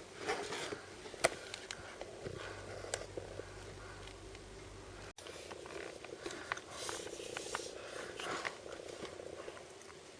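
Handling of blind-bag and surprise-box packaging: irregular plastic crinkling with small clicks and taps, busiest in the second half.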